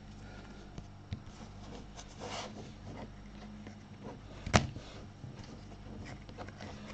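Quiet handling of freshly opened trading cards: faint rustles and light ticks, with one sharp tap about four and a half seconds in, over a low steady electrical hum.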